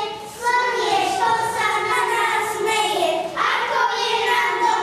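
Children singing a song in Slovak, a melody of held notes with a short break about a second in.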